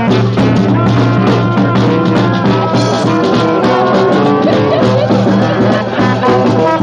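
A street brass band playing live: trombone and trumpets over bass drum and snare, with a steady drum beat.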